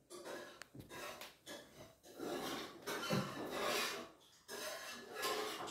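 Rustling and rubbing handling noise from a phone being moved and carried, in short irregular bursts with brief gaps.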